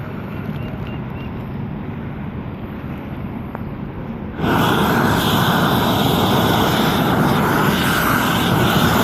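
Propane roofing torch running with a steady rushing noise, which jumps suddenly much louder about four and a half seconds in.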